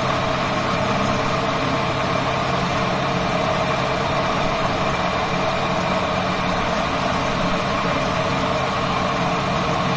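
Tomato-paste machine's motor running steadily, a continuous hum with several held tones and no change in speed or load.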